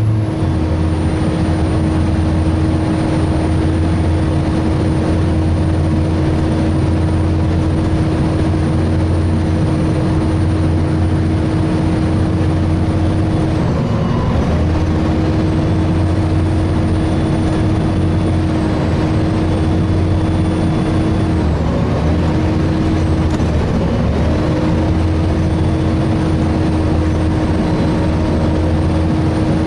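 A Volvo B7TL double-decker bus driving along, heard from inside the lower saloon. The diesel engine hums under a steady whine from its engine cooling fan. The whine dips in pitch briefly a few times, about halfway through and again towards the end.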